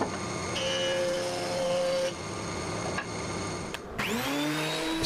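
Planer-jointer running as a board is fed on edge across its cutter block, a steady machine noise. About four seconds in, after a sudden break, a benchtop thickness planer's motor starts up, its whine rising and then levelling off.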